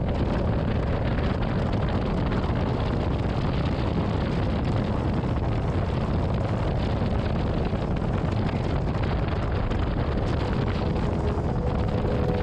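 Steady wind noise on the microphone of a motorcycle riding at highway speed, with the bike's engine and tyre noise underneath.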